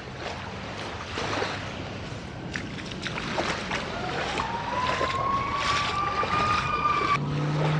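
Wind on the microphone and small waves at the water's edge, with a distant motor whine rising in pitch over the second half and a lower steady engine hum coming in near the end.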